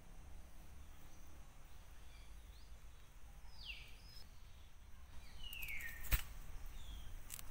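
Faint outdoor ambience with a low rumble, over which a bird gives a few short whistled calls that sweep downward in pitch, two of them clearer in the middle. A single sharp click, the loudest sound, comes about six seconds in, with a couple of lighter clicks near the end.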